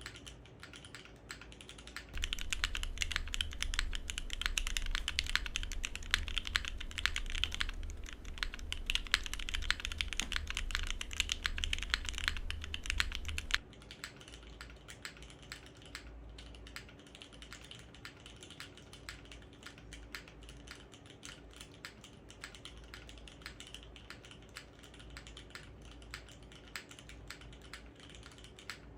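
Continuous typing on a Salvation 60 mechanical keyboard with Gateron Oil King linear switches, an aluminium plate, no case foam and GMK keycaps: rapid, dense keystrokes. The typing is much louder from about two seconds in until nearly halfway, then drops abruptly to a softer level and carries on.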